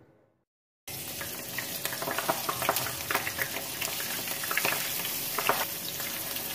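Spring rolls (nem rán) deep-frying in very hot oil in a pan: a dense sizzle with frequent sharp crackles and pops. It starts suddenly about a second in, after a moment of silence.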